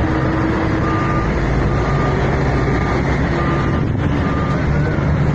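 Heavy truck engine running steadily, with a short high electronic warning beep repeating about once a second over it.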